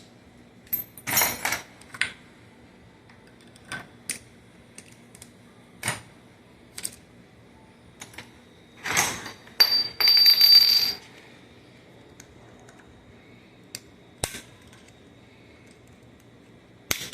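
Sharp metallic clicks and clinks of steel gearbox parts and tools as a snap ring is worked off a manual transmission shaft. A louder clatter comes about a second in, and a metallic rattle with a ringing note about ten seconds in.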